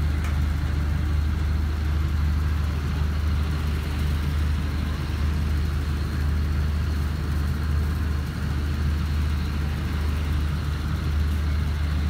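Steady low drone of an idling engine.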